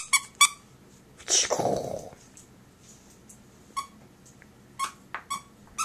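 Angry Birds squeaky dog toy squeezed in short, sharp squeaks: two near the start, then four more spaced about half a second to a second apart near the end. A longer, louder sound comes about a second and a half in.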